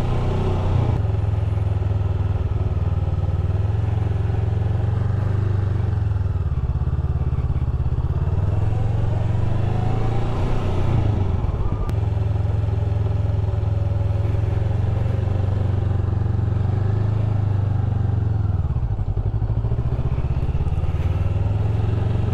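Honda Rebel 500's parallel-twin engine running at low revs during slow-speed turns, the revs wavering a little with the throttle and dipping briefly near the end.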